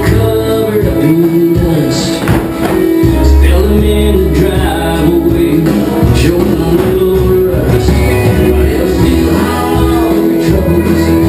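Country song with a singer over guitar and a steady bass line, played loud for line dancing.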